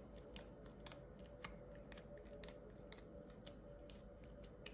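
Fingertips poking and pressing into soft slime dusted with gold powder, giving faint, irregular little clicks and pops.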